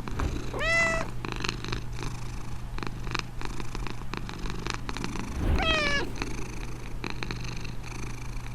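Scottish fold cat purring steadily close up. Two short rising calls, each about half a second long, stand out over it: one near the start and one about five and a half seconds in.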